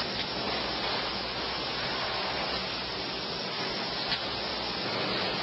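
Steady, even hiss with a faint click about four seconds in.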